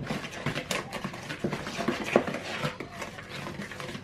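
Wooden spoon stirring thick chocolate brownie batter in a plastic bowl, in quick, uneven strokes as the cocoa powder is mixed in.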